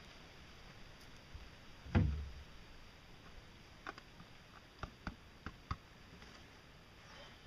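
One heavy thump about two seconds in, then a handful of light knocks and clicks as a bent sheet-metal part is handled against the boat's metal hull.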